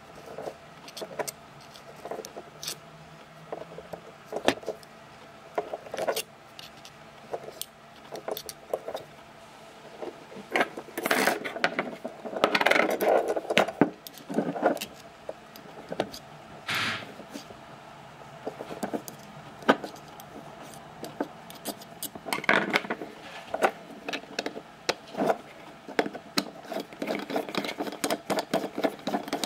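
Small metal clicks, taps and scrapes as a thin steel rod packs cotton wool into the brass fuel chamber of a gasoline lighter, with handling of the brass parts. The clicks come irregularly throughout, with a denser, louder stretch about halfway through.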